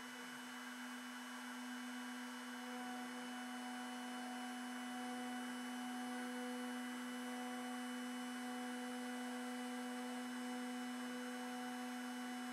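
Desktop CNC router spindle running at speed, a steady hum with a fine engraving bit isolation-milling the copper off a circuit board.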